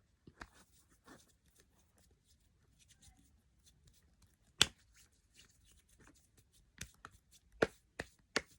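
Light clicks, taps and rustles of small plastic makeup items and packaging being handled, with one sharp click about four and a half seconds in and several more near the end.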